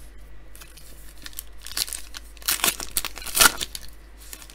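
Foil wrapper of a 2019 Panini Prizm Draft Picks card pack crinkling and tearing as it is ripped open by hand. It is a run of crackling rustles that grows loudest a little past the middle.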